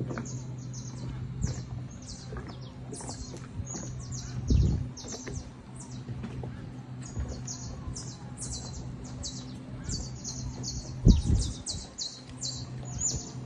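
Birds chirping in the Pantanal wetland, many short high calls in quick succession. Underneath runs a steady low hum, and there are two low thumps, about four and a half seconds in and a louder one about eleven seconds in.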